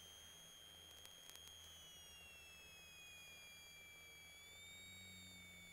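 Near silence: only a faint high whine that slowly falls in pitch about two seconds in, over a faint low hum.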